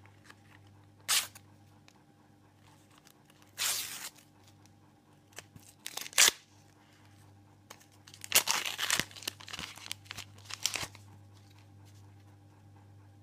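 Foil-wrapped sticker packet torn open by hand: a handful of short rips and crinkles, the sharpest about six seconds in and a busier run of them near the end.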